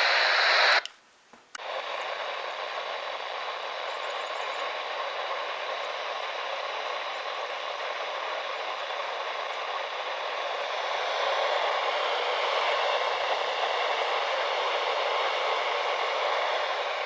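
Weather radio receiver hissing with static and no voice on the channel: a steady noise that cuts out briefly about a second in, then comes back and swells slightly past the middle.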